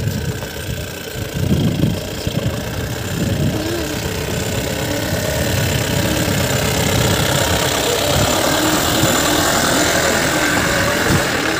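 Jeep engine running at low revs as the jeep crawls over bare rock, coming close and passing by.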